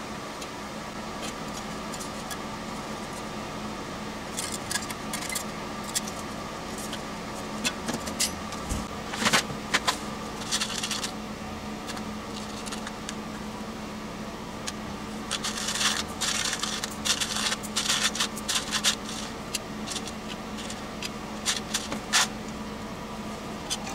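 Small metal parts and aluminium panels clicking and rattling as they are handled on a workbench, in scattered bursts, over a steady background hum.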